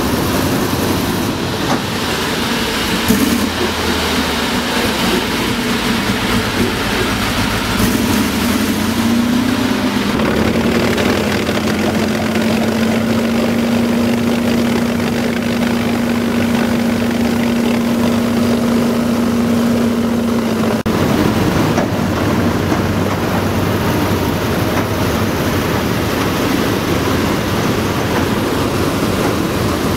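WWII-vintage Marine LVT amphibious tractor under way in water: its engine runs loudly and steadily while its tracks churn up spray beside the hull. A steady hum rides over the engine noise for about ten seconds in the middle.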